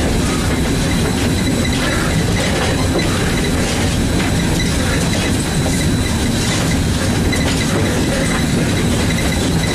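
Steam locomotive No. 630, a Southern Railway 2-8-0, running, heard from inside its cab: a loud, steady din of the locomotive and its wheels on the rails.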